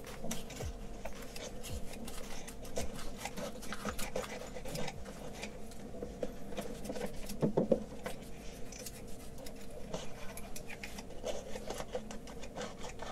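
Green-handled aviation tin snips, freshly cleaned of rust, cutting through sandpaper: irregular crunching snips and blade clicks with the paper rustling, loudest about halfway through.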